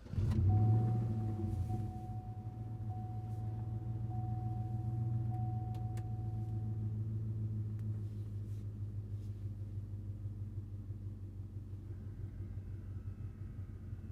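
Chevrolet Tahoe V8 with a Hooker Aero Chamber muffler, running at a steady low speed with an even exhaust note. A faint, steady high tone sounds over it for the first several seconds.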